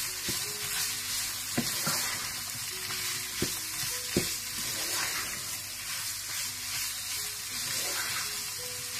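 Chicken, mushrooms and bell peppers sizzling in a frying pan while a wooden spatula stirs them, with a few sharp knocks of the spatula against the pan.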